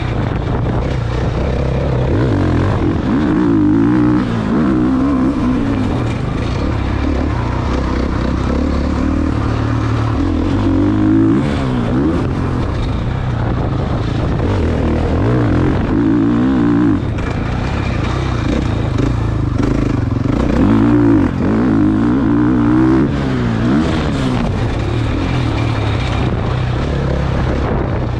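Dirt bike engine revving up and down again and again as the bike is ridden over a rough track, heard from a helmet camera on the rider.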